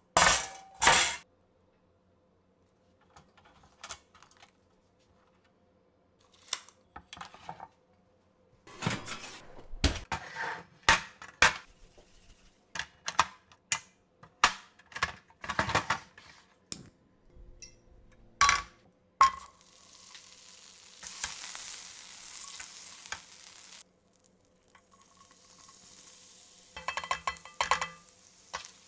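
Metal clanks as a sheet pan and wire rack are set down, then scattered knocks and clicks as a portable butane stove is handled. About two-thirds of the way in, a sharp click is followed by a steady hiss for about five seconds. Near the end, minced garlic sizzles in butter in a stainless steel frying pan, with a quick run of metal clinks.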